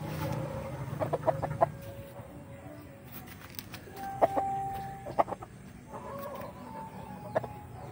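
Young rooster clucking in short sharp notes, with a brief steady call about four seconds in and a wavering call about six seconds in.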